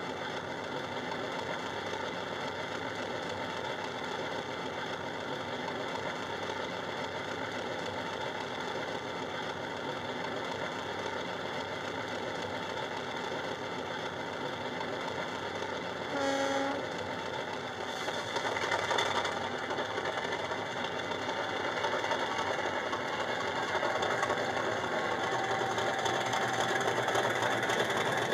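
Sound decoder of a Hornby Class 50 model diesel locomotive, playing a Class 50 engine sound through an EM1 speaker and a small tablet speaker: the engine runs steadily, a short horn note sounds about sixteen seconds in, and the engine sound builds as the locomotive pulls away with its wagons.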